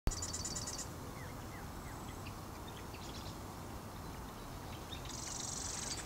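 Wild birds singing in a marsh: a fast, high trill near the start, scattered short chirps, and a buzzy high trill near the end, over a steady low background hiss.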